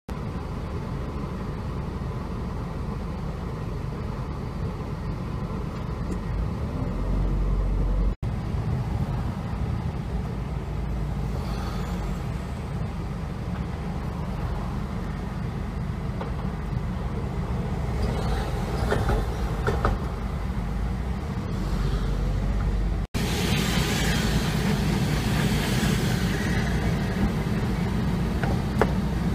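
Steady low rumble of a car driving in city traffic, heard from inside the car. It breaks off abruptly twice, with a little more hiss and a few short squeaking tones in the later part.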